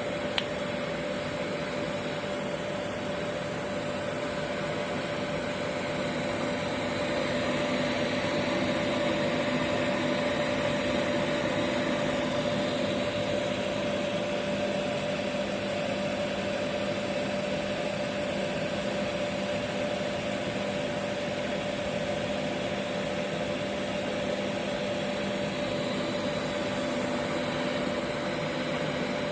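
Oil-fired boiler burner running steadily, a constant hum of its blower motor and pump over a rushing noise, with one click about half a second in.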